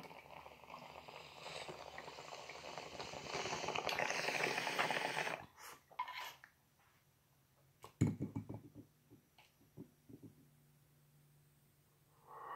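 Glass water bong bubbling steadily as smoke is pulled through the water in a long hit. The bubbling grows louder for about five seconds, turns to a louder airy rush in its last second and stops suddenly. A single knock comes about eight seconds in.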